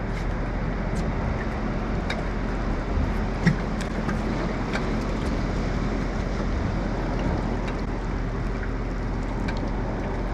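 Steady hum and wash of a fishing boat's engine and the water around it, with scattered faint clicks and one sharper knock about three and a half seconds in.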